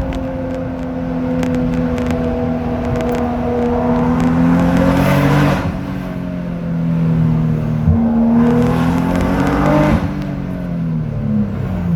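A vehicle engine with a loud exhaust accelerating hard. Its pitch climbs and drops suddenly at two gear changes, about halfway through and again near ten seconds, then falls away as the vehicle slows near the end.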